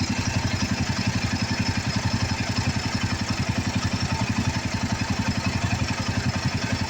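Royal Enfield Himalayan 450's 452 cc single-cylinder engine idling steadily with an even, rapid pulse, running on a FuelX Pro+ fuel controller just switched to a different program.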